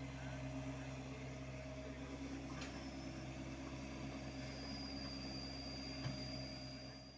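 Hyundai R80-7 mini excavator's diesel engine running steadily while it digs and swings, with a sharp knock about two and a half seconds in and another about six seconds in; the sound fades away at the very end.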